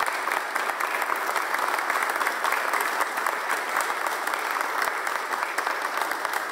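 Audience applauding: many people clapping steadily, the claps blending into a dense, even sound.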